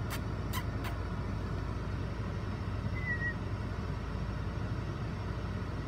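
Steady low rumble inside a Peugeot car's cabin with the engine running. Three quick clicks in the first second and a brief high squeak about three seconds in.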